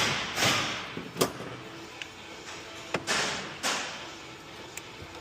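Short hissing bursts, each fading out within about half a second, with a few sharp metallic clicks between them, from hands-on tool work at the engine's knock sensor.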